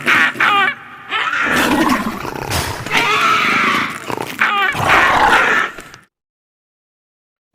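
Raptor-like creature sound effect: about four harsh, warbling roaring calls in a row, then a sudden cut to silence for the last second and a half.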